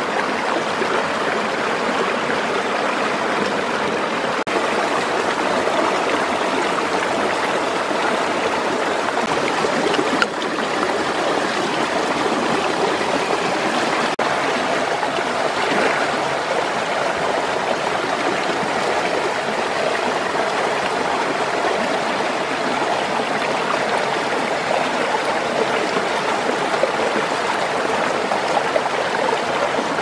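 Shallow stream running over rocks: a steady rush of flowing water.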